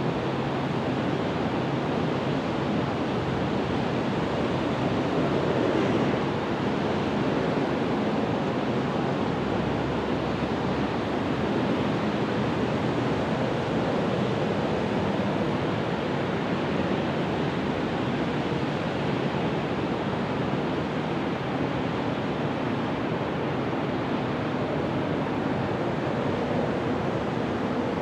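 Steady rushing outdoor background noise at an even level, with no distinct events.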